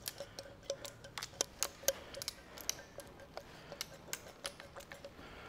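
Hand pump oil can clicking as its trigger is squeezed again and again, squirting oil onto an adjustable reamer: a quick, irregular run of light sharp clicks, some with a short metallic ring.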